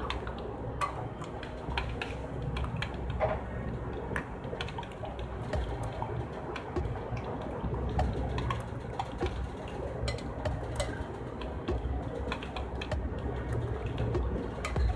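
Metal spoon stirring a thick yogurt mixture in a cut-glass bowl, with many light clicks and scrapes of the spoon against the glass, over a low background hum.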